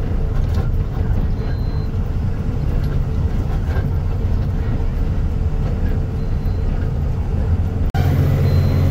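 Truck engine running with road noise while driving. About eight seconds in the sound breaks off sharply and turns into a steadier engine hum.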